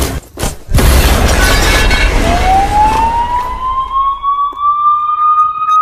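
A loud, bass-heavy burst of music breaks off for a moment and comes back. Then a siren tone climbs slowly and steadily in pitch for about four seconds and cuts off sharply.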